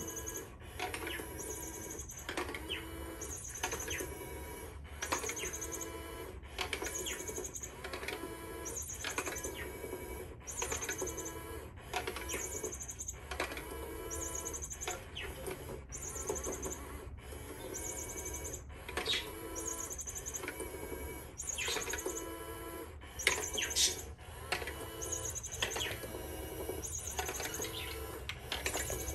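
Battery-powered Pop n' Play cat toy running, its motor whirring in repeating cycles with short pauses as the wand pops in and out of the dome's holes.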